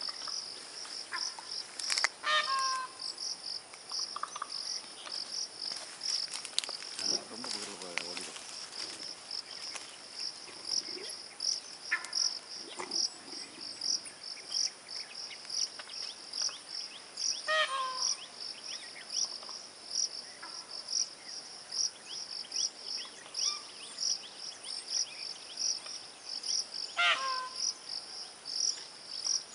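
Insects chirping in a high, steady, evenly pulsing chorus. Now and then a short call falls in pitch, about two seconds in, in the middle and near the end.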